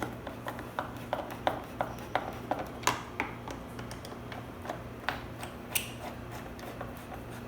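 Phillips screwdriver turning screws into a plastic ATV battery cover: a run of light, sharp clicks and ticks, about three a second for the first three seconds, then fewer and more scattered.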